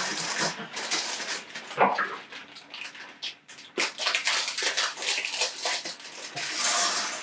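Thin plastic bags of Lego pieces crinkling and rustling as they are handled and cut open with scissors, in a run of irregular crackles.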